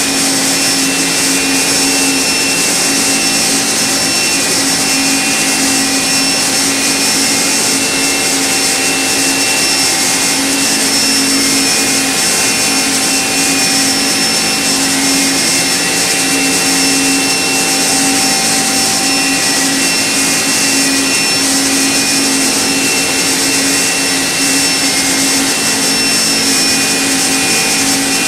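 Okuma MB-5000HII horizontal machining centre at work, its spindle turning a small coated cutter against the workpiece: a steady mechanical whine over a strong hiss, with several held tones that stay level throughout.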